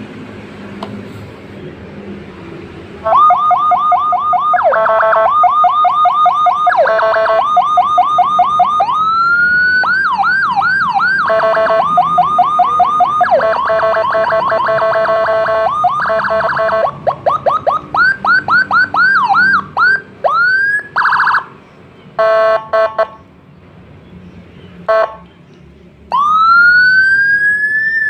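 Whelen electronic fire-truck siren module cycling through its European tones. From about three seconds in it plays a fast alternating two-pitch hi-lo tone, then quick rising-and-falling yelp sweeps, then the hi-lo again. After that come short broken bursts with gaps, and near the end a slow wail that rises and falls.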